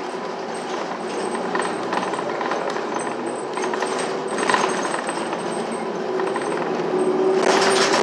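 Inside a moving New Flyer city bus: a steady drivetrain hum under road noise, with light rattling. The noise swells briefly about four and a half seconds in and again near the end.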